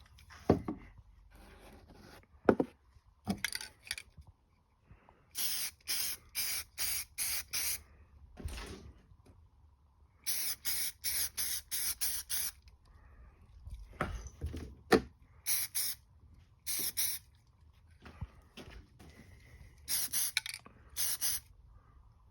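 Runs of short hissing strokes, about three a second and eight or so to a run, from work on a metal wheel part, with a few sharp knocks in between.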